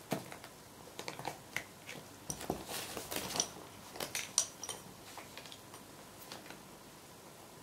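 Newspaper crackling and rustling as a cat paws at it and rolls on it: a run of quick, irregular crinkles, busiest in the middle, dying away over the last couple of seconds.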